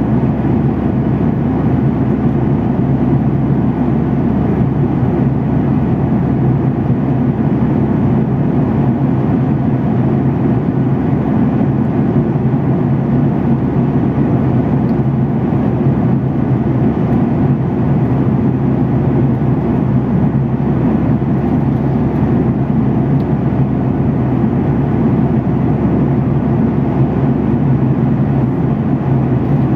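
Steady low drone of a jet airliner's cabin in flight, from the engines and the airflow past the fuselage, even and unbroken.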